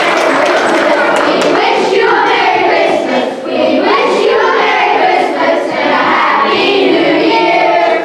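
Children's choir singing, after applause fades out in the first second or two.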